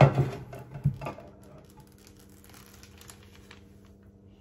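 Two knocks, the first the loudest, then light crinkling and rustling of a plastic zip-top bag of filling being handled. After about a second and a half this gives way to a quiet kitchen with a low steady hum.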